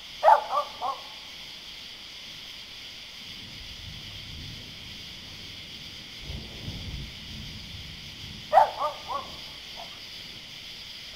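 A dog barks twice in quick runs of three short barks, about eight seconds apart. Between them a low rumble of distant thunder rolls for a few seconds, over a steady high background hiss.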